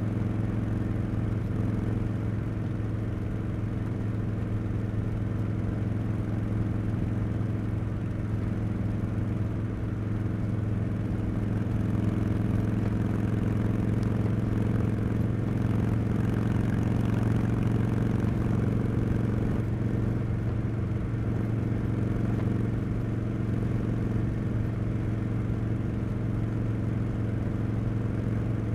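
Harley-Davidson Street Bob 114's Milwaukee-Eight 114 V-twin running through Cobra Neighbor Hater slip-on mufflers at a steady cruise, engine pitch holding level. It gets slightly louder about midway through, then eases back.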